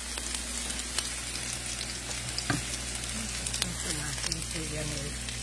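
Small shrimp frying in hot oil in a pan: a steady sizzle with frequent small pops and crackles.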